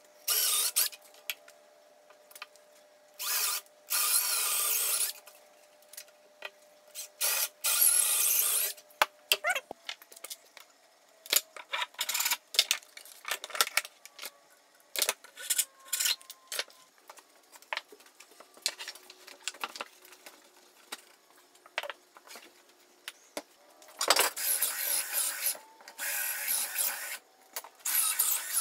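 Power drill boring dowel holes through 2x4 breadboard ends and tenons, in several runs of a second or two. Between the runs come scattered clicks and knocks.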